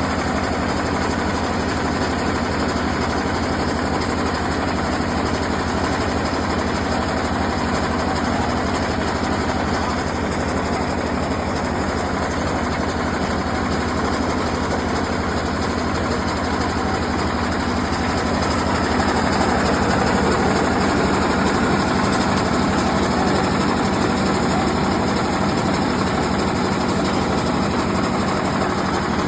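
Heavy engine of a borewell rig running steadily under load, a dense low-pitched hum with a constant drone; it gets slightly louder about two-thirds of the way through.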